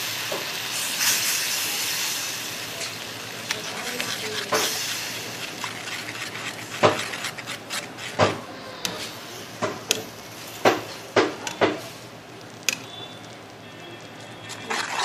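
Toffee sauce of caramelised sugar, butter and milk sizzling and hissing in a pan on a gas burner, the hiss fading over the first half. A metal utensil stirs it and knocks against the pan in a string of sharp clinks toward the end.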